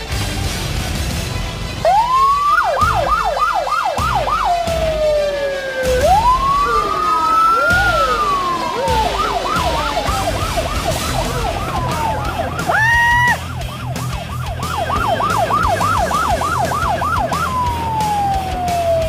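Electronic vehicle siren switching between a slow rising-and-falling wail and a fast yelp of about four sweeps a second, with a short steady horn-like tone about two-thirds of the way through.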